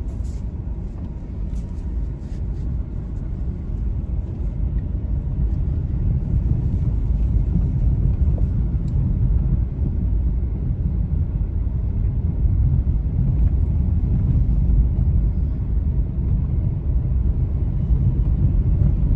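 A car's engine and tyres on a rough concrete road, heard inside the cabin as a steady low rumble that grows a little louder over the first several seconds.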